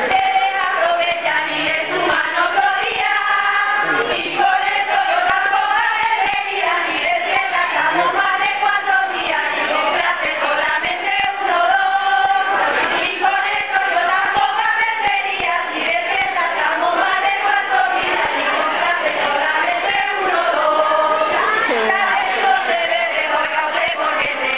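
A group of voices, female voices to the fore, singing a melody together in chorus.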